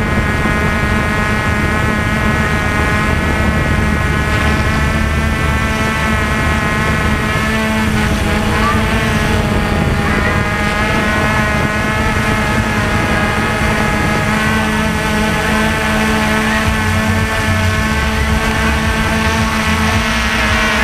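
V303 quadcopter drone's motors and propellers in flight, a steady multi-tone whine that holds level throughout with only slight shifts in pitch.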